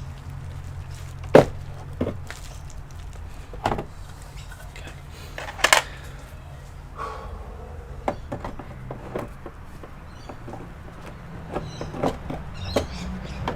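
Irregular clicks, taps and knocks of hands and tools working on the plastic and metal parts of an opened all-in-one computer, with two louder knocks about one and a half and six seconds in, over a steady low hum.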